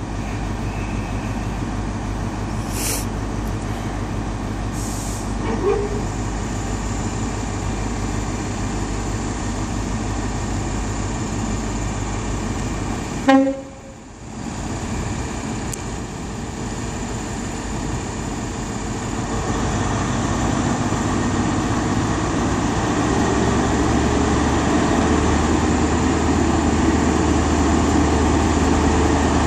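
Diesel engine of an HST's Class 43 power car idling at the platform with a steady low hum. About two-thirds of the way in, the engine note steps up and grows louder as the train powers up to pull away. A short sharp sound comes about halfway.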